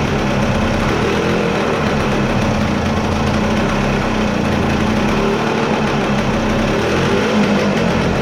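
1974 Yamaha DT250A's two-stroke single-cylinder engine running steadily, idling.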